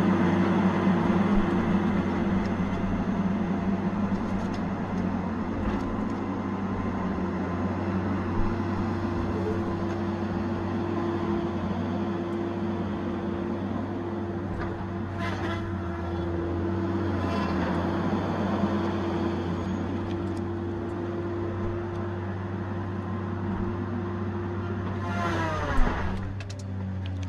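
Tigercat 870C feller buncher running steadily under load, an even engine and hydraulic drone. Near the end a whine drops sharply in pitch, with a short loud knock, and the machine settles to a lower, different drone.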